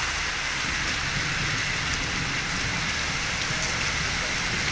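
Heavy rain pouring steadily onto a wet asphalt road.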